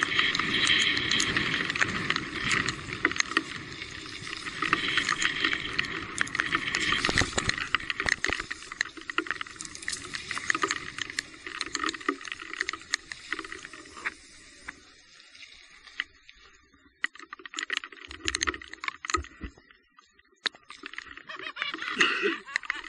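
Electric mountain bike riding over a wet, muddy trail: tyre and water noise with many small rattles and clicks. It fades after about eight seconds to scattered clicks.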